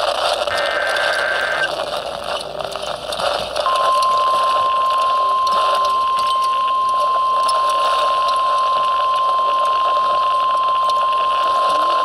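Weather radio sounding an Emergency Alert System alert over static: a short burst of the digital header data about a second long, then, about four seconds in, the NOAA Weather Radio warning alarm, one steady high-pitched tone held to the end. The alarm signals that a warning, here a severe thunderstorm warning, is about to be read.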